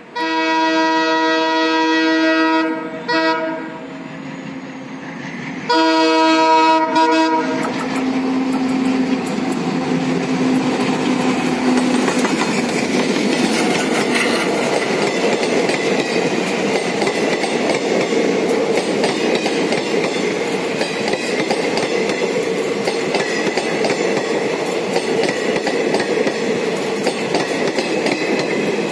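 Diesel locomotive air horn sounding twice, a long blast of about three seconds and a shorter one a few seconds later, as an ALCo WDG3A locomotive approaches at speed hauling a passenger train. The locomotive and its coaches then pass close by, with a steady rush of wheel clatter over the rail joints.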